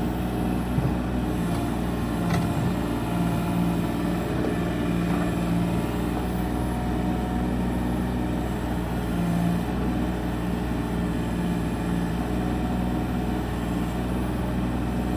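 Excavator's diesel engine running steadily while digging, with a faint knock about a second in.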